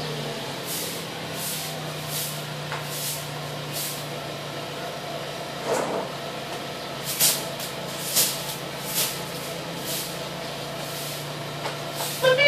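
Chevrolet Cruze engine idling at the exhaust tip, breathing through aftermarket Stivo headers with the stock resonator and muffler: a steady low hum, with short hissy puffs every second or so.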